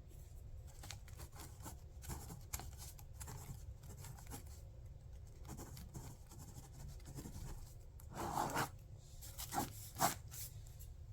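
Faint rustling and scraping handling noises with scattered light clicks over a low steady hum, with a few louder scrapes about eight to ten seconds in.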